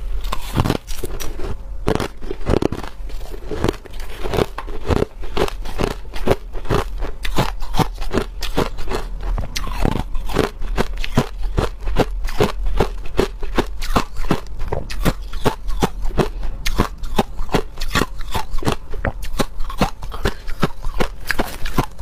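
Close, loud crunching of hard crushed ice being bitten and chewed in the mouth: a rapid, uneven run of sharp cracks and crackles, several a second.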